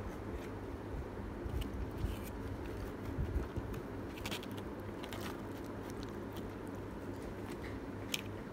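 Scattered small clicks and rustles of hands taking a slice of pizza from its cardboard box, over a steady low hum.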